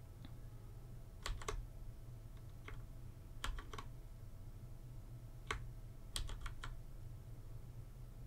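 Computer keyboard keys clicking in small scattered groups, a few presses at a time, as copy and paste shortcuts are pressed. A low steady hum lies underneath.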